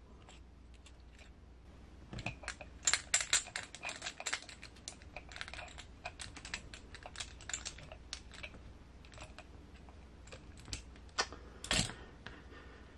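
Irregular small clicks and ticks of a hex driver working a set screw on an RC crawler's metal driveshaft and the parts being handled. They are busiest between about two and five seconds in, with one sharper click near the end.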